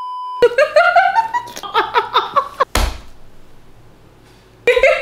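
A brief steady test-pattern beep that cuts off, then loud laughter, a sudden thump partway through, a short lull, and laughter again near the end.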